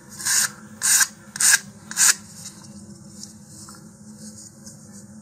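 Sandpaper on a sanding tee rubbed along the edge of a paper-skinned balsa fin in four quick strokes, about two a second, stopping about two seconds in. It is sanding off the beading of super glue left on the fin edges.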